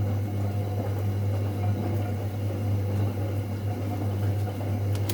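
A steady low hum, unchanging throughout, with no other clear sound standing out.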